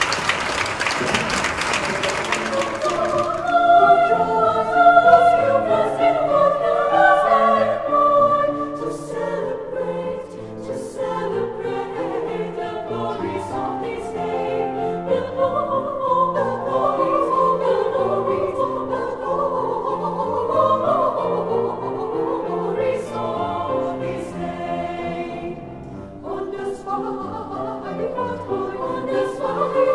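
Audience applause dies away over the first three seconds or so, then a choir begins singing, several voice parts moving together in harmony.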